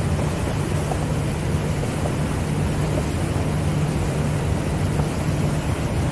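Small motorboat's engine running steadily while underway, a constant low drone, with a steady rush of wind over it.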